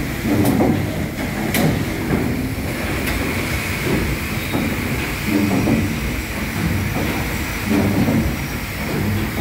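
PS Waverley's three-cylinder triple-expansion steam engine running under way, its pistons, cranks and connecting rods turning the paddle shaft with a low churning that swells in a steady rhythm about every two and a half seconds, with a few sharp clicks.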